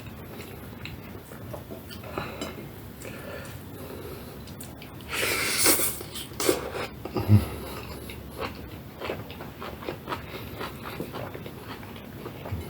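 Close-miked eating: chewing with many small wet clicks and smacks. About five seconds in comes a louder noisy burst lasting about a second, followed by a couple of sharper knocks.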